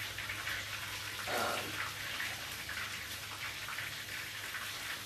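Chicken frying in hot oil in a cast iron skillet: a steady crackling sizzle.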